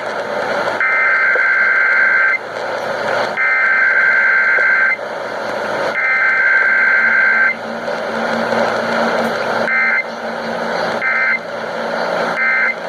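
Emergency Alert System SAME data tones on a radio broadcast: three long bursts of two-tone digital warble, about a second and a half each with a second's gap between them, then three much shorter bursts of the same tones near the end, all over steady radio hiss.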